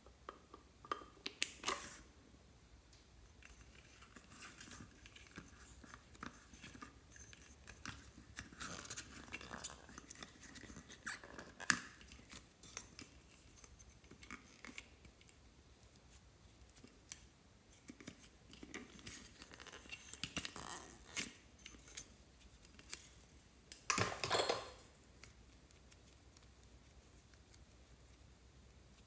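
Hands opening a plastic Hello Kitty toy container: scattered clicks, scrapes and rustles of plastic parts being worked apart, with a louder burst of rustling about 24 seconds in.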